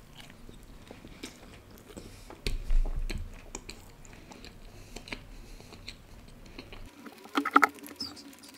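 Close-miked chewing of a mouthful of egg curry: wet smacking and small clicks of the mouth. A louder dull bump comes about two and a half seconds in, and a short burst of louder mouth noises near the end.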